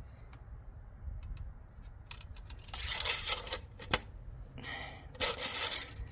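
Engine oil dipstick being drawn from its tube and wiped: a few faint clicks, then short scraping and rustling bursts through the second half, with one sharp click about four seconds in.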